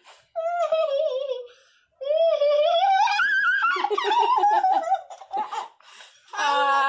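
A young girl's high-pitched giggling and squealing laughter, in several bursts with short pauses, and a lower voice laughing in short pulses about two-thirds of the way through.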